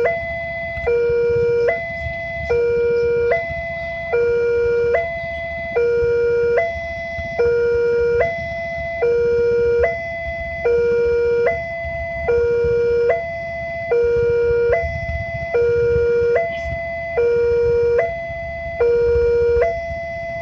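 Level-crossing warning alarm sounding, an electronic two-tone signal switching between a higher and a lower tone a little under once a second without a break, over a steady low rumble.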